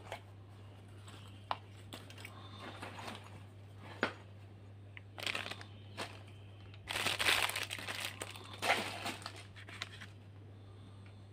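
Rustling and crinkling of things being handled by hand, with a few sharp clicks between bursts; the longest, loudest crinkling comes about seven seconds in. A steady low hum runs underneath.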